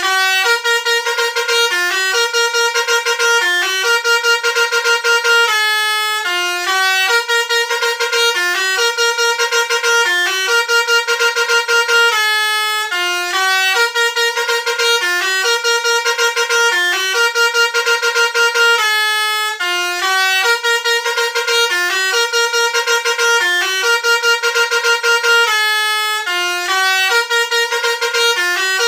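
Basuri telolet bus horn playing a looping multi-note tune of bright, buzzy held notes and quick note runs, repeating about every six and a half seconds.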